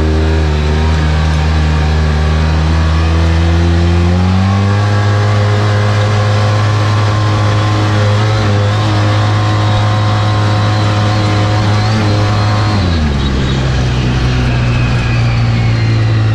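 2014 Polaris RZR side-by-side's engine running hard under throttle at speed, heard from the cab. Its pitch steps up about four seconds in, holds steady, then drops about thirteen seconds in and settles at a lower steady pitch.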